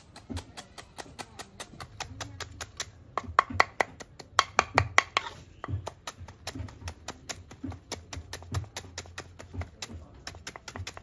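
Knife chopping stalks of grass on a cutting board in quick, even strokes, about five or six a second, slicing them into short pieces.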